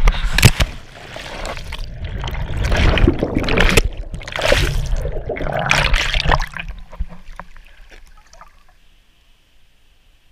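Water splashing and churning around a body-worn action camera as its wearer jumps into a pool and goes under: a sharp splash about half a second in, then several seconds of rushing, bubbling water that dies away after about seven seconds.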